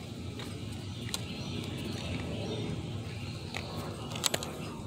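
Close handling and rubbing noise with scattered light clicks; the loudest is a quick pair of sharp clicks about four seconds in.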